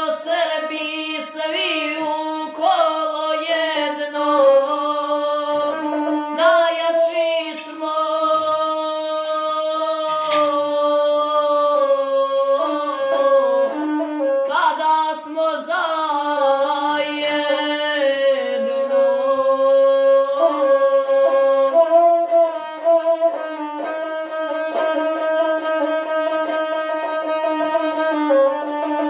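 A boy singing in the Serbian/Montenegrin guslar style while accompanying himself on the gusle, a one-string bowed folk fiddle. His ornamented, wavering vocal line is doubled by the bowed string, and near the end the voice drops out, leaving the gusle alone.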